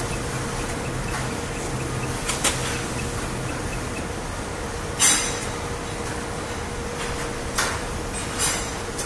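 Full-servo horizontal flow wrapping machine running empty, with no product fed and so no bags being made: a steady machine hum with a faint constant tone, broken by a few sharp clacks, the loudest about halfway through.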